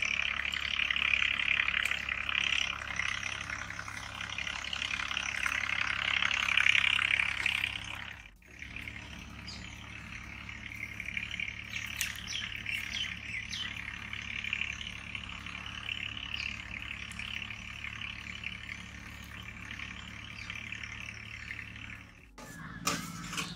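Steady hiss of a large pot of chicken gravy simmering over the fire, cutting out briefly twice, with a few short bird chirps.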